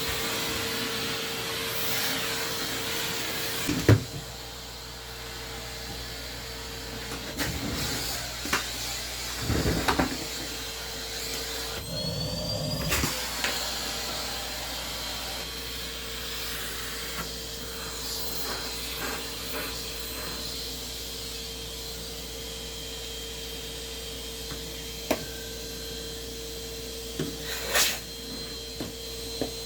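Vacuum cleaner running with a steady whine, with knocks and bumps as it is pushed around. A loud knock comes about four seconds in, after which it runs a little quieter.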